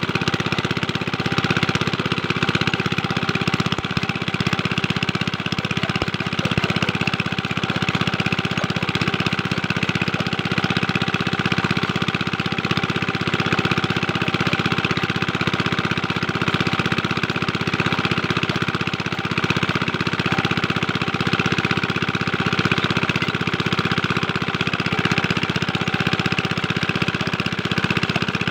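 Small single-cylinder Chinese diesel engine running steadily at a fast, even beat while it drives a water pump, with water splashing from the pump outlet.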